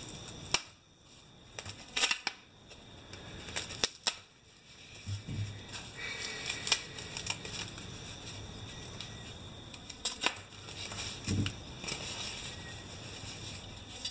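Foam packing strips being pulled out of a cardboard box, rubbing and scraping against the cardboard, with rustling and a scatter of sharp clicks and light knocks.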